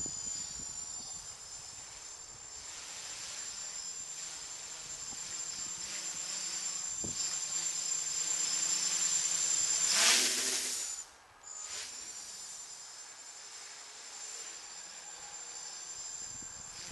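Quadcopter's electric motors and propellers buzzing as it flies at a distance, swelling loudly about ten seconds in as the pitch rises, then briefly dropping away.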